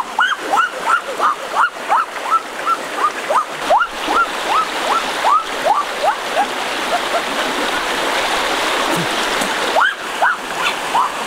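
Rushing water of a shallow, rocky stream running in rapids. Over it, a short falling chirp repeats about three times a second and fades out about seven seconds in.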